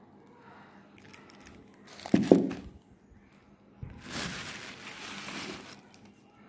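Thin plastic grocery bags crinkling as they are handled. There is a short, loud thump about two seconds in, then a longer stretch of rustling from about four seconds until shortly before the end.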